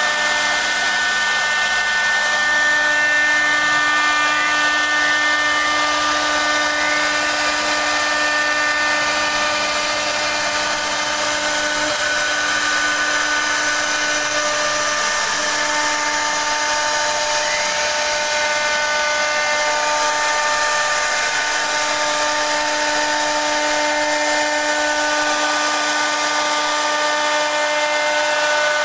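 A CNC router spindle runs at speed while its bit cuts a carved pattern into a wooden board. It makes a steady whine of several tones over the hiss of cutting wood, and the pitch of some tones shifts now and then as the cut changes.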